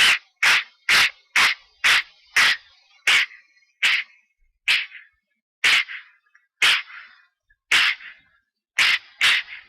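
A long run of about fourteen short, sharp stifled sneezes, coming about two a second at first and then slowing to about one a second: an allergic sneezing fit set off by a cat.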